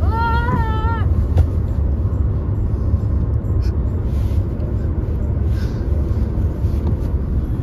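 Steady low road and engine rumble inside a moving car's cabin at highway speed. A brief high-pitched voice sounds in the first second.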